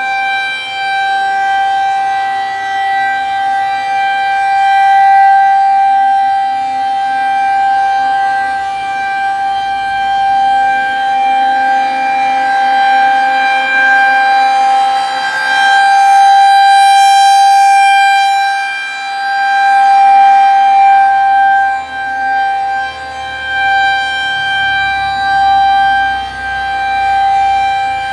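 Outdoor tornado warning siren sounding a steady, loud, single-pitched wail during an equipment test, its loudness swelling and fading every few seconds.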